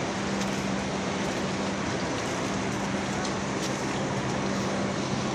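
A motor running steadily with a constant hum under even, rushing machinery noise, with a few faint clicks.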